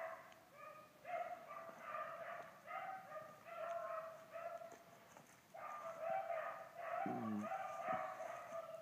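A pack of hunting dogs baying faintly, a continuous string of short yelping barks with several dogs overlapping: the dogs running a rabbit's trail.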